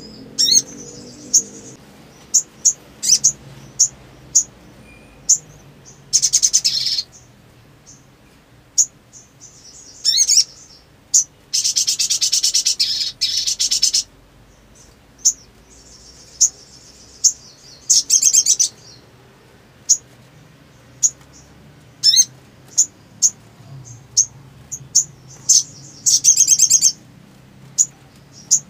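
Sunbird calling: sharp, high single chirps scattered throughout, broken by several rapid, buzzy trills of one to two seconds each, the longest about twelve seconds in.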